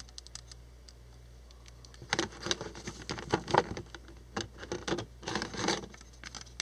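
Hard plastic parts of an action figure being handled, with clicking and scraping as a wing's pegs are worked into the holes in the figure's back. A few faint clicks at first, then busy clusters of clicks and rustles from about two seconds in.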